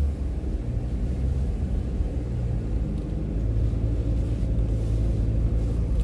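Car driving on a paved road: a steady low rumble of engine and tyre noise with a faint engine hum.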